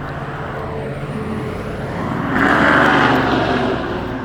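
A motor vehicle driving past, its engine and tyre noise swelling to a peak a little past halfway and then fading, over a steady low engine hum.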